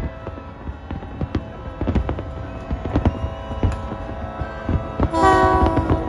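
New Year fireworks bursting, with many sharp bangs and crackles one after another. About five seconds in, a loud blaring horn sounds over them.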